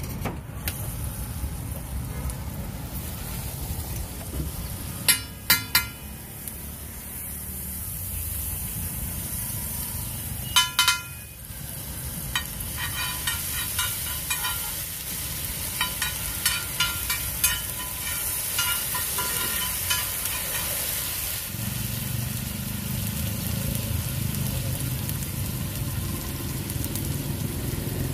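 Butter and chopped onions sizzling on a large flat iron griddle (tawa), with a steel spatula striking and scraping the iron. There are a few loud metal clanks about five and eleven seconds in, then a run of quicker ringing taps. A low rumble joins over the last several seconds.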